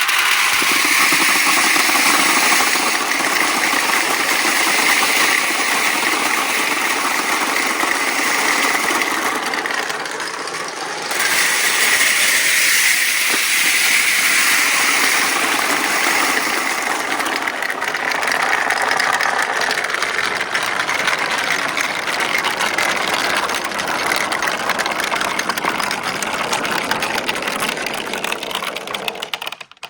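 Many marbles rolling down a four-tier rainbow slope marble run, a dense continuous rattle. It starts suddenly on release, dips briefly about ten seconds in, and cuts off abruptly near the end.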